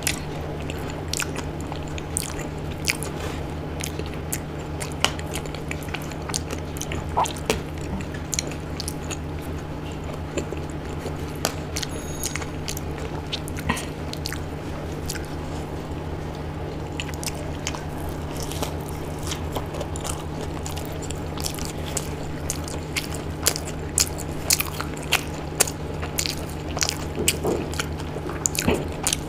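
Close-miked eating by hand: chewing and biting soft khichdi and a fried pakoda, with frequent wet mouth clicks and smacks. A steady low hum runs underneath.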